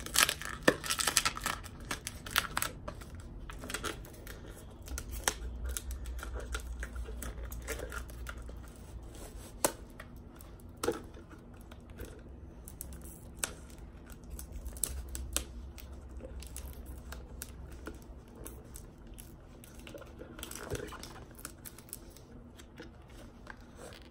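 Cardboard mailing tube being opened by hand: tape tearing, with scattered clicks, scrapes and rustling of cardboard and packaging, and now and then a low rumble of handling.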